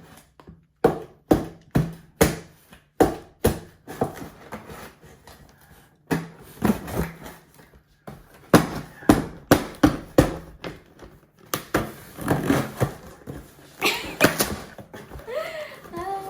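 A package being cut open with a makeshift tool in place of scissors: a run of sharp scraping strokes, about two a second at first, then denser scraping and rustling of the packaging.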